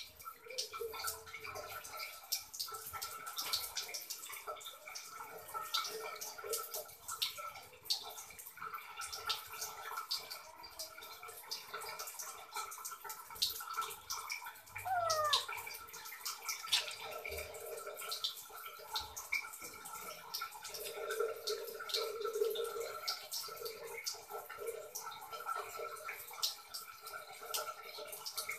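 Hands scrubbing and lathering a wet kitten's soapy fur: many small wet squelches and water drips, over a faint steady run of water.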